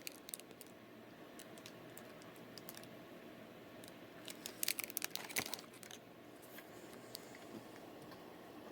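Snack-cake wrapper crinkling faintly in the hands, with scattered crackles and a short burst of crinkling about four and a half seconds in.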